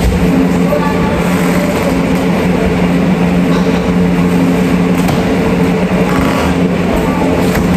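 Loud, steady mechanical hum with an unchanging low drone, like a running electric motor.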